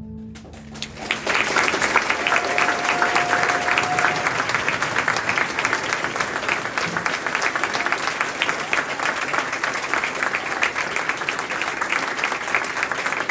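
Audience applauding steadily after a string orchestra's final chord. The orchestra's last low note rings off at the very start, and the clapping starts about a second in. A single steady tone sounds over the clapping for about two seconds.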